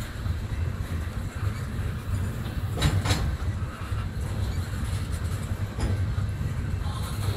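Freight train of tank cars rolling past with a steady low rumble of steel wheels on rail. A quick pair of sharp wheel clacks comes about three seconds in, and a fainter single clack near six seconds.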